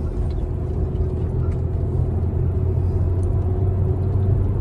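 Car cabin noise while driving: a steady low rumble of engine and tyres on the road, heard from inside the car.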